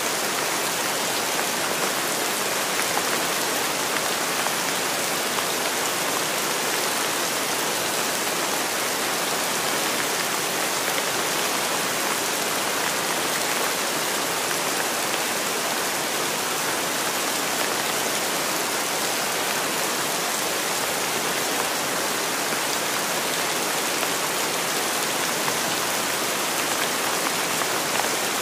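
Steady rainfall: an even, unbroken hiss of rain with no pauses or other sounds.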